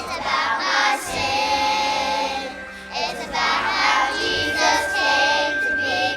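Children's choir singing a Christmas worship song with instrumental accompaniment.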